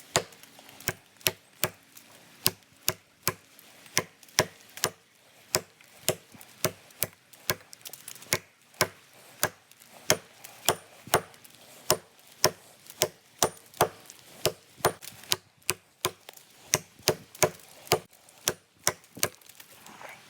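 Origin Knives Bushcrafter axe, without its splitting head, swung one-handed to chop limbs off a beech trunk: a steady run of sharp wooden chops, about two a second, stopping near the end.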